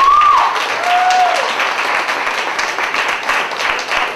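Audience applauding, tapering off slowly, with two long held high calls over the clapping near the start, the second shorter and lower.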